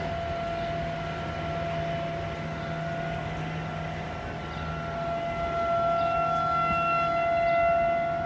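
Outdoor warning siren sounding a steady tone during a siren test, swelling louder from about five seconds in.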